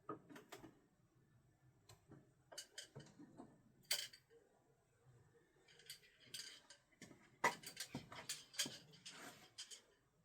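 Steel no-spin throwing screwdrivers knocking and clicking as they strike the target and are handled: scattered sharp knocks, a loud one about four seconds in, then a quick cluster of them from about seven and a half seconds on.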